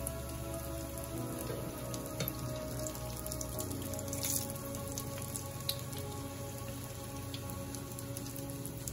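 Hot oil sizzling and crackling steadily around lavash-wrapped samosas shallow-frying in a pan, with scattered small pops, over soft background music.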